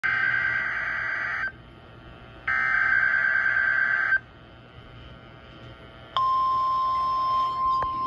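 NOAA Weather Radio required weekly test signal through a Motorola handheld radio's speaker: two harsh, buzzy bursts of SAME digital header data, each a second and a half or so long, then about six seconds in the steady single-pitch warning alarm tone begins and holds.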